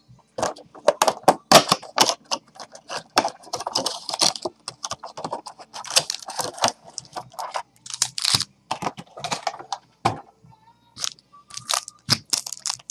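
A sealed box of trading cards being opened by hand: its wrapping crackling and tearing in a dense run of sharp crackles and snaps, with a short pause near the end.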